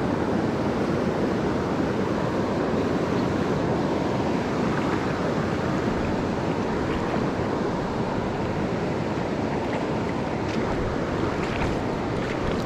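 Steady rush of fast-flowing river water around a drifting raft, with some wind on the microphone and a few faint ticks near the end.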